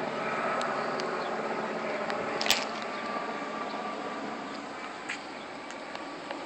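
Steady outdoor background noise with one sharp knock about two and a half seconds in and a few fainter clicks after it.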